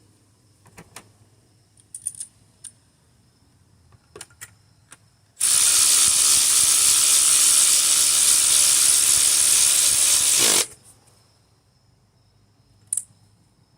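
Ratchet wrench on a spark plug socket, clicking rapidly for about five seconds while a spark plug is run in, after a few light clicks of the socket and tool being handled.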